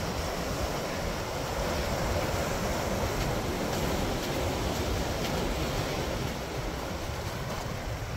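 Ocean surf breaking on and washing over flat coastal rock shelves: a steady rush of water with a low rumble.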